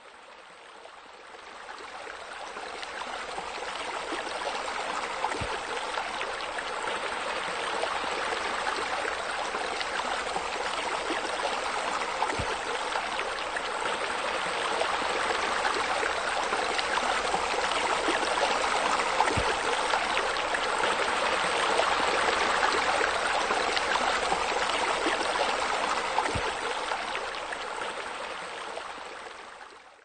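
Steady rush of water from a small waterfall spilling and splashing into a pool. It fades in over the first couple of seconds and fades out at the end.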